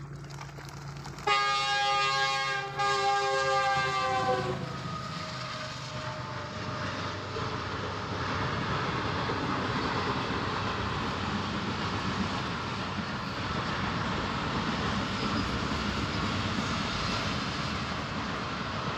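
Hot oil in a large iron karahi sizzling steadily as a batch of dried tube-shaped papad (fryums) fries and puffs up. About a second in, a loud multi-tone horn sounds for about three seconds, dropping slightly in pitch as it fades.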